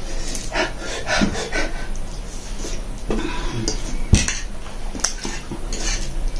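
A fork scraping and clinking against a plate as noodles are scooped up: scattered short clinks and scrapes, with a sharper knock about four seconds in.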